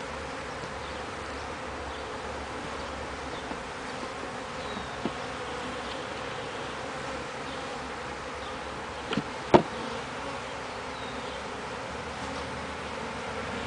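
Honeybees buzzing in a steady hum around an open, busy hive during an inspection. About two-thirds of the way through there are two sharp knocks, the second the loudest sound.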